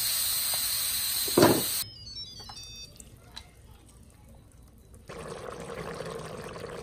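Simfonio electric pressure cooker venting steam through its release valve at the end of pressure cooking: a loud hiss with a low thump, cutting off abruptly about two seconds in. Then a short descending run of high electronic tones, and a fainter steady noise near the end.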